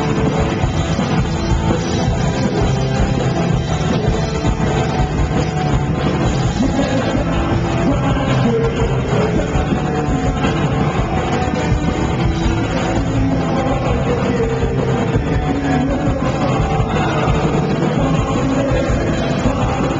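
Punk rock band playing live through a stage PA: electric guitars and full band, loud and continuous.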